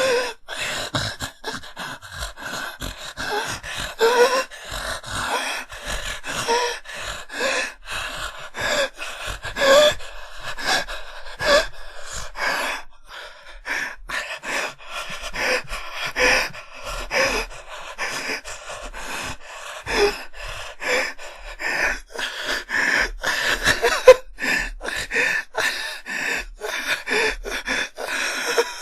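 A person gasping and panting for breath: quick, ragged breaths one after another, some with a voiced catch in them, broken by short pauses.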